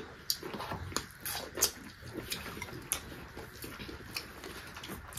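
Close-miked eating: chewing and lip-smacking, with irregular small wet clicks as rice and chicken gizzard curry are mixed and eaten by hand.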